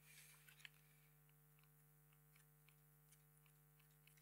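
Near silence: a low steady hum, with a soft rustle and a few faint clicks of a paperback book's pages being turned in the first second.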